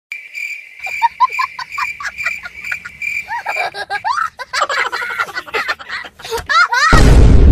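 Cartoon-style comedy sound effects: a high beeping tone pulsing steadily for the first few seconds, quick squeaky rising chirps over it, then a loud rushing noise burst near the end.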